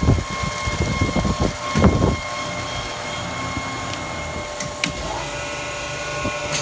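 Used thermoforming machine running with a steady mechanical hum and a constant high whine, consistent with its cooling fans turning. A few low thumps come in the first two seconds, and there is a light click about five seconds in.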